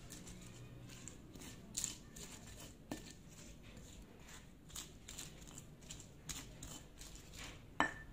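Stone pestle grinding chilies and garlic on a flat stone mortar (ulekan and cobek): irregular faint scraping and crushing strokes, the loudest one near the end.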